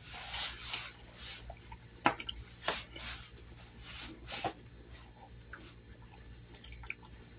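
A tablet in its case being handled: rustling, then a few sharp taps and clicks in the first half, fading to small faint ticks.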